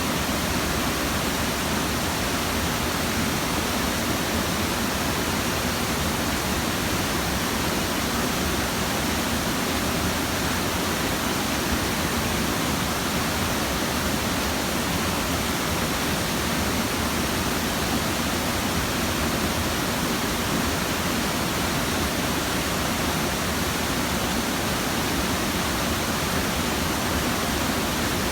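Waterfall pouring steadily, a dense, even rush of water with its flow swollen after a typhoon.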